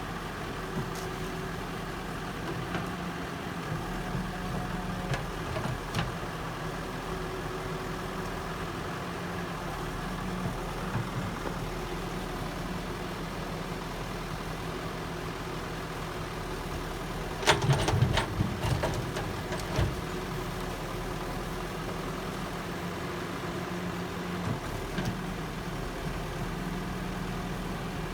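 A heavy construction machine's engine running steadily, with a short burst of loud clattering knocks about two-thirds of the way through.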